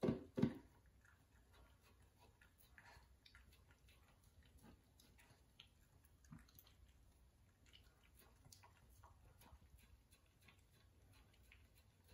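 Shiba Inu eating dry kibble from a stainless steel bowl: faint, scattered crunching and clicking of the kibble. There are two louder knocks in the first half-second.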